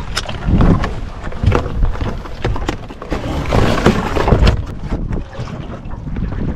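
Wind buffeting the microphone, with irregular knocks, clicks and scrapes as a live mud crab moves in a plastic tub and is lifted out by hand.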